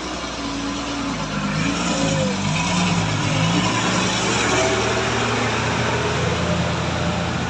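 Bus diesel engines working hard up a steep grade, the engine note rising and falling for the first few seconds, then holding steadier.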